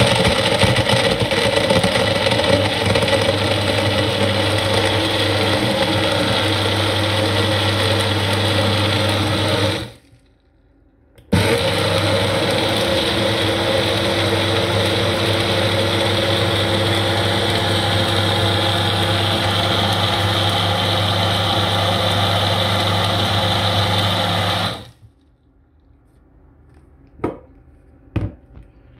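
Magic Bullet personal blender running, blending milk and Bounty chocolate bars into a milkshake: it runs steadily for about ten seconds, stops for about a second, then runs again for about thirteen seconds before cutting off. Two short knocks near the end.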